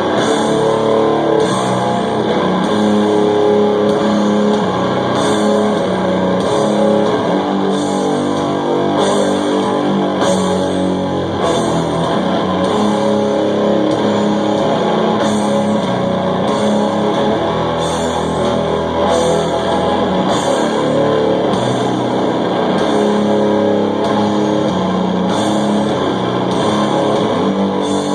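Heavy metal band playing live: loud distorted guitars and bass over drums, with a slow beat that strikes about once a second.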